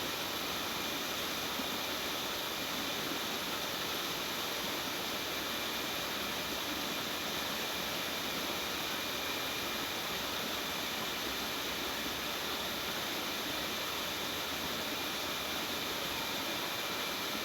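Steady, even background hiss with faint constant high tones and no knocks or taps.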